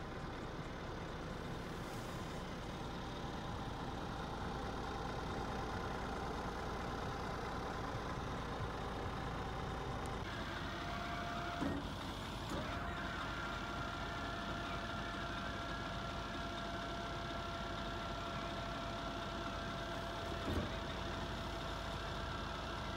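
Truck engine idling steadily. About halfway through, the electro-hydraulic tail lift's pump starts with a steady whine as the lift unfolds and lowers, then cuts off with a short knock near the end.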